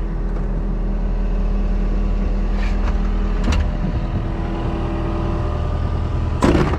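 Mini excavator's diesel engine idling steadily, with a couple of light clicks around the middle and a brief, louder knock near the end.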